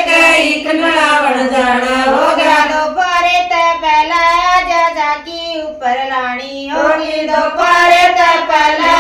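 Women singing a Haryanvi folk song (geet) together in long, wavering held notes, with brief breaks between phrases about three and six seconds in.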